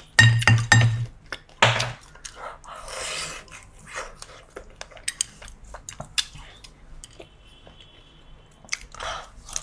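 Close-miked biting and chewing of candy-coated grapes: a few loud crunching bites in the first two seconds, then quieter chewing with small clicks and crackles.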